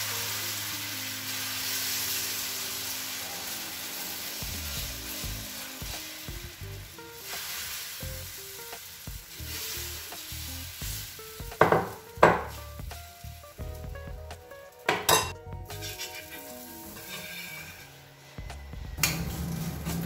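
Egg paratha batter sizzling on a hot tawa, with a few sharp clinks of the ladle and spatula against the pan about twelve and fifteen seconds in.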